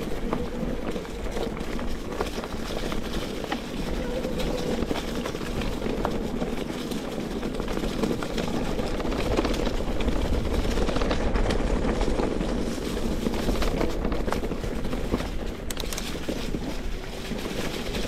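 Mountain bike rolling over a trail: a steady rumble of tyres and wind noise, with frequent small clicks and rattles.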